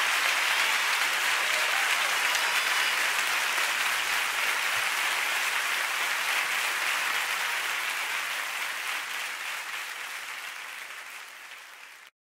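Audience applauding, fading out gradually over the last half and cutting off just before the end.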